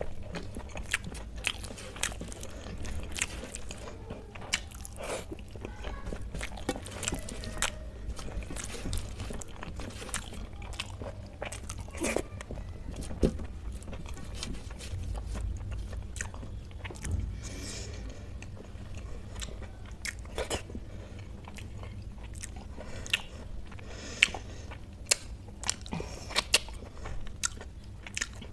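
Close-up eating sounds of kadhi chawal and pakoda eaten by hand: chewing and biting with many short, sharp mouth clicks and crunches, over a steady low hum.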